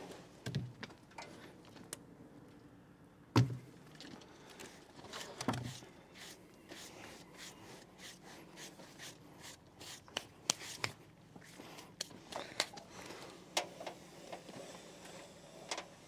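Scattered knocks, thumps and clicks of freshly sawn boards and mill parts being handled, with the loudest knock about three seconds in.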